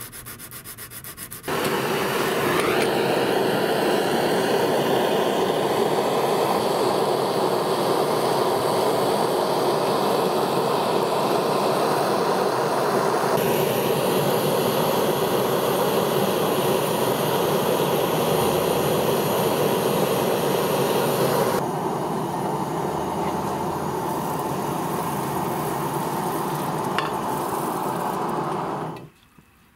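A handheld gas torch burning with a loud, steady rushing hiss as it heats a steel knife blade red-hot for hardening. Just before it, a second and a half of hand-sanding strokes on the blade. The hiss shifts in tone a couple of times and cuts off suddenly near the end.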